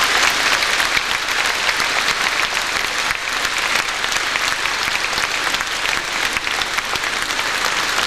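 Concert-hall audience applauding steadily.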